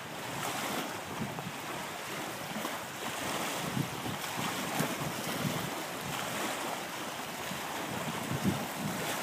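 Wind buffeting the microphone over small lake waves washing in the shallows, a steady rushing noise with small uneven swells.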